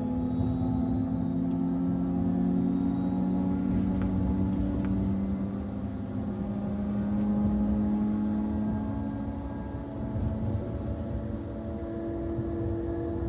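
Thalys TGV high-speed train heard from inside the driver's cab while running: a steady low rumble with several humming tones that drift slightly lower in pitch, and a new, higher hum comes in about ten seconds in.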